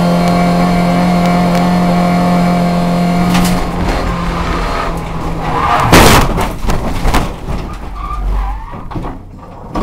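Race car's engine held at steady high revs, heard from inside the cabin, then breaking into skidding tyre noise as the car slides off line. About six seconds in comes a loud crash as it hits the metal guardrail, with a second knock a second later, and then the engine falls silent.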